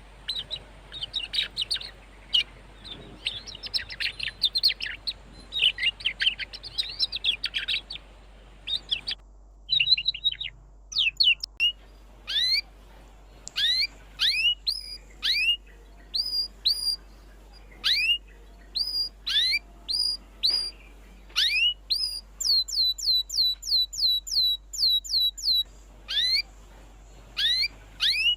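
Domestic canaries singing: about eight seconds of dense, busy twittering, then a string of separate rising whistled notes, which near the end turn into a fast run of about three identical notes a second.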